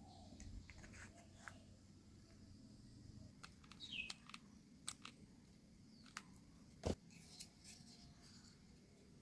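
Faint scattered small clicks and taps, like handling of small parts or materials. The loudest tap comes about seven seconds in, and a brief squeak comes near four seconds.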